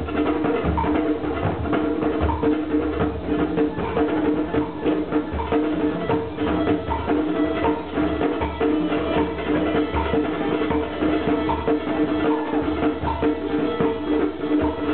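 Live band music: quick, busy percussion strikes over a steady drone of two held notes.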